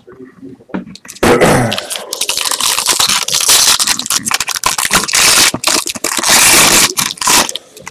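Foil baseball-card pack wrapper being torn open and crinkled by hand: a loud, crackling rustle that starts about a second in and goes on for several seconds.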